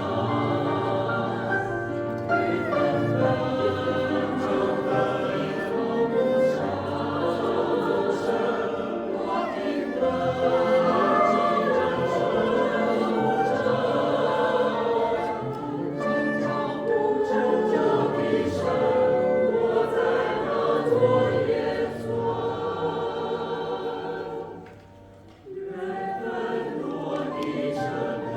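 Music with singing: voices carry a slow melody over accompaniment, with a short drop in level about twenty-five seconds in.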